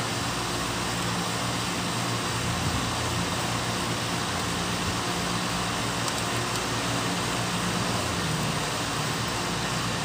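Outdoor condensing unit of a 5-ton ducted air conditioner running steadily: an even fan rush over a low, constant hum. It is running while refrigerant is charged through the low-pressure side, the pressure approaching 50.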